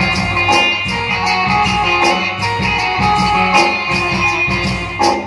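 Live stage band playing an instrumental interlude with no singing: a melody on keyboard over a steady drum beat.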